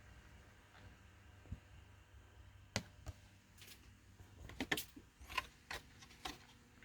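Small clicks and taps of stiff plastic toy packaging being handled, the blister and inner tray of a carded action figure. A few scattered ticks come first, then a quick run of clicks a little under halfway through.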